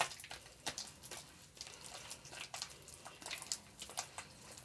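Freshly activated slime being kneaded and stretched by hand: irregular wet, sticky clicks and pops.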